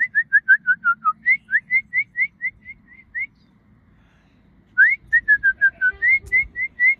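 A person whistling a quick run of short rising notes, about six a second, in two phrases. In each phrase the notes first step down in pitch, then settle higher. It is a birdlike whistle imitating birdsong.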